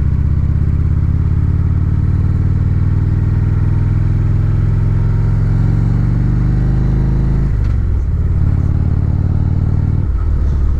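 Harley-Davidson touring motorcycle's V-twin engine running under way, heard from the bike itself: a steady low engine note that drops and changes about three-quarters of the way through, and again near the end.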